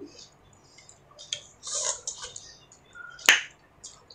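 Eating noises of two people biting and chewing juicy pineapple and peeled lemon pieces: scattered small wet clicks, with one sharp click about three seconds in.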